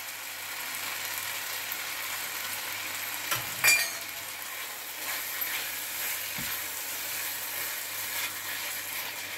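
Potato and vegetable stuffing sizzling steadily in a frying pan, with one sharp click about three and a half seconds in. Near the end it is stirred with a wooden spatula.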